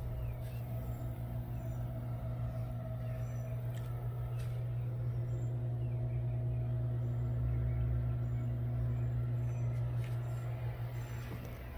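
A steady low mechanical hum, an even drone that holds unchanged, with a few faint knocks over it.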